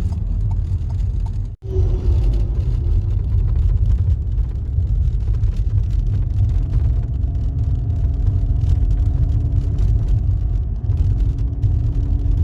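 A car on the move: a steady low rumble of road and engine noise, with a faint steady hum joining about six seconds in. The sound cuts out for an instant about one and a half seconds in.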